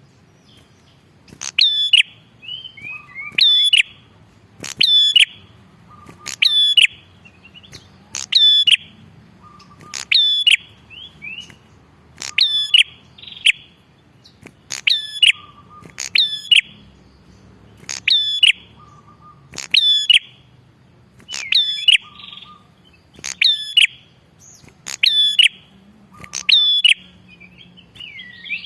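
Prenjak kepala merah (red-headed prenjak) repeating a loud, sharp chirping call about every second and a half to two seconds. Each call is a quick downward-sweeping note.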